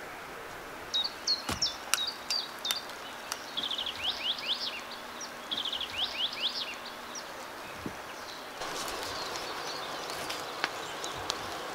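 A songbird singing: a run of high chirps, then repeated series of short falling notes. Over it come a few short knocks as wood rounds are set into the clay wall.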